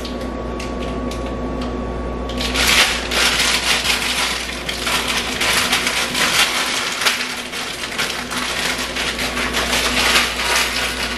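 Fruity Pebbles candy being handled for a shake: dense crackling and clattering that starts about two and a half seconds in, over a steady low hum.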